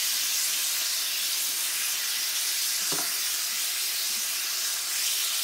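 Bacon and an egg sizzling steadily on a hot cast iron griddle, an even frying hiss, with a light click about three seconds in.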